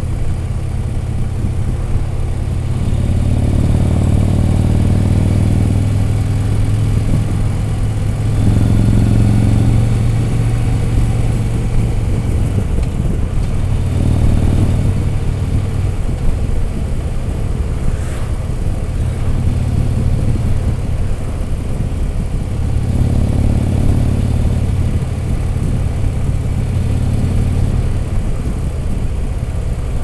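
Touring motorcycle engine running at road speed, a steady low hum whose note swells several times as the throttle is opened and eased.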